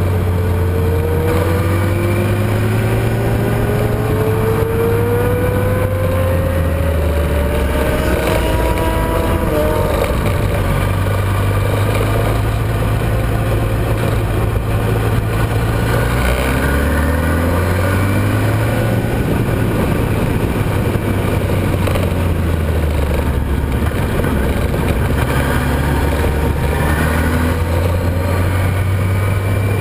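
Onboard a motorcycle at speed on a racetrack: heavy wind rush on the microphone over the engine, which pulls up steadily through the revs for about the first ten seconds. Past halfway it drops back and then builds again.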